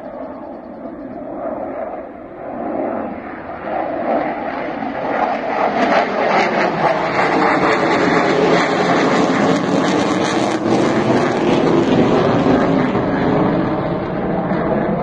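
Jet noise from a Su-30MKI fighter's twin AL-31FP turbofans as it flies overhead. The noise grows louder over the first several seconds and crackles at its loudest in the middle, with its pitch sliding down. It eases off a little near the end.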